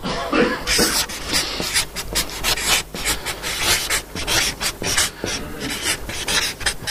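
Marker pen writing on flip chart paper: an uneven run of short, scratchy rubbing strokes.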